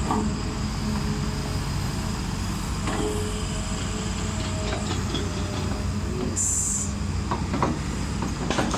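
Heavy diesel earthmoving machinery running steadily with a deep engine rumble. A short high hiss comes about six and a half seconds in.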